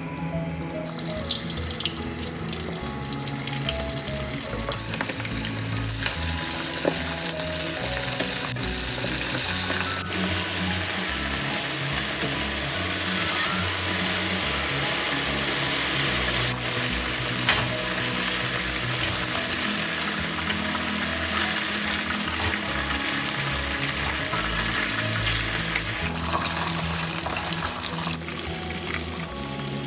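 Cornstarch-coated chicken wings deep-frying in hot oil in a wok: a steady sizzle that starts as the first piece goes in, grows louder as more pieces are added, and eases off a little near the end.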